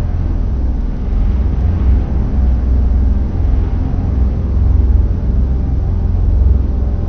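A loud, steady deep rumble with a low hum running through it, swelling slightly now and then.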